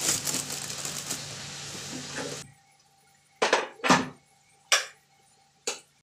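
Crinkling and rustling of a clear plastic bag being handled, a dense crackle that stops about two and a half seconds in. After that come four short, separate handling sounds, each under half a second, spaced about a second apart.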